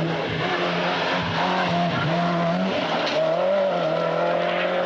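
Peugeot 205 rally car engine running hard at high, fairly steady revs, the pitch easing briefly and climbing again, over a hiss of tyres on the loose, dusty road.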